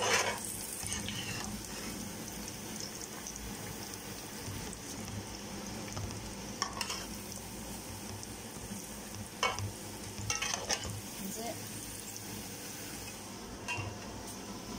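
Pork pieces deep-frying in hot oil in an aluminium pot: a steady sizzle and bubbling, with a few short, sharp clicks scattered through.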